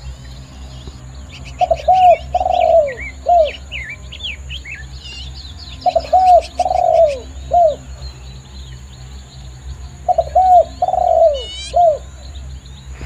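Spotted dove cooing: three phrases of four low coos, about four seconds apart. Smaller birds chirp higher up in the first half, and a quick trill comes near the end.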